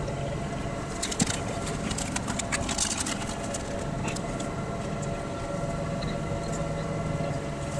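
Steady hum of an idling vehicle engine, with scattered light clicks and ticks about a second in and again near three seconds.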